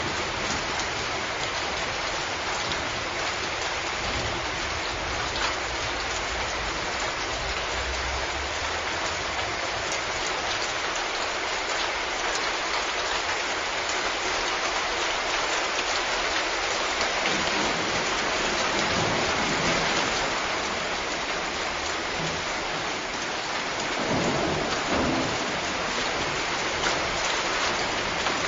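Steady rain pouring down, with low rolls of thunder rumbling under it at the start and again a few times in the second half.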